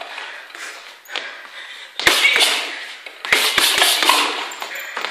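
Boxing gloves striking a floor-to-ceiling ball in quick combinations: a light hit about a second in, a couple of sharp smacks around two seconds, then a rapid flurry of three or four punches a second later.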